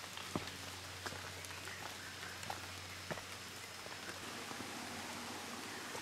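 Rain pattering on rainforest foliage: a steady hiss with a few scattered, irregular drop ticks.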